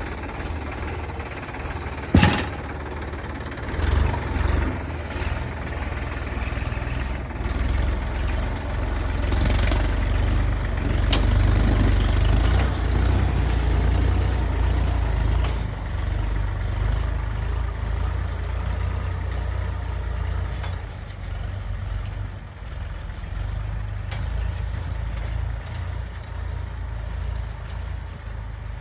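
Tractor engine running while pulling a subsoiler, with a sharp knock about two seconds in. The engine gets louder from about four seconds and eases off after about twenty seconds.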